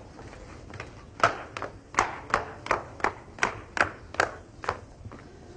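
Footsteps going quickly down a flight of outdoor stairs: about ten even steps, roughly three a second, starting about a second in and stopping near the end.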